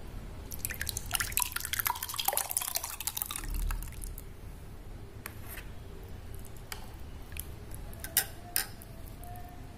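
Thick mango custard poured into a glass bowl, plopping and splattering in a dense run of small wet splats for about three seconds. After that there are scattered soft clicks, and two sharper knocks of the ladle near the end.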